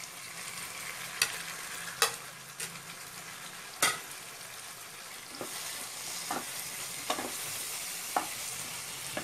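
Pieces of brain frying in a spicy tomato-onion masala in a kadai, sizzling steadily, while a wooden spatula stirs them and knocks against the pan about eight times.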